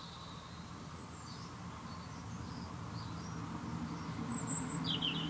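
Birds chirping in short, scattered calls, with a clearer run of chirps near the end, over a low steady hum that slowly grows louder.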